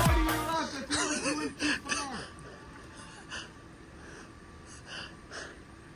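Dance music fading out at the very start, followed by short wavering voice sounds for about two seconds, then a quiet outdoor background with a few faint soft hisses.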